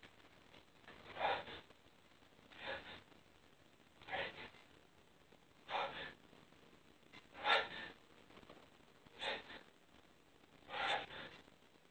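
A man's heavy, gasping breaths from the exertion of burpee jumping jacks: seven forceful breaths, about one every second and a half.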